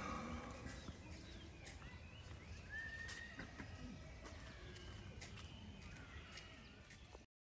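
Indian rhinoceros breathing and blowing at the water's surface as it lies in a pool, faint, with small water sounds and a short whistle-like chirp about three seconds in; the sound cuts off just before the end.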